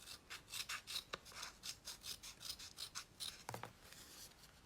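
Kinesiology tape being handled and trimmed: a run of quick, dry, scratchy rustles, several a second, that thin out near the end.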